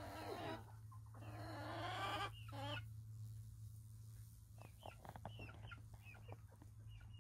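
Hens clucking. There are a few longer, louder calls in the first three seconds, then a run of short, quick clucks.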